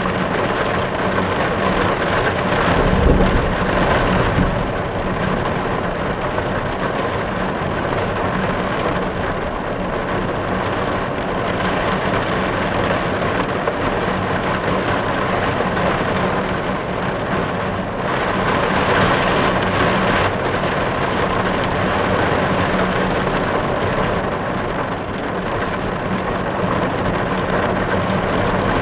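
Steady rain falling on a car's roof and glass, heard from inside the car. There is a short low rumble about three seconds in and a slightly heavier spell of rain around twenty seconds in.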